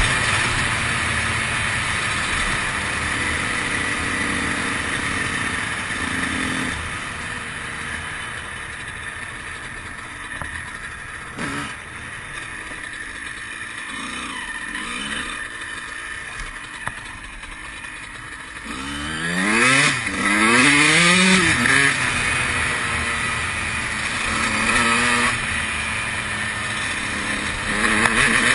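2003 Honda CR125's single-cylinder two-stroke engine under way on a trail ride: on the throttle at first, easing off to a quieter low-throttle run for about ten seconds, then revving up hard in quick rising sweeps about two-thirds of the way in, with more throttle bursts near the end.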